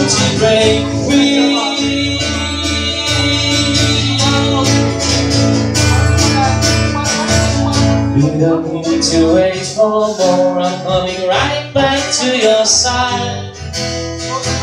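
Acoustic guitar strummed in a steady rhythm, its chords ringing on, in an instrumental passage of a live pop-rock song.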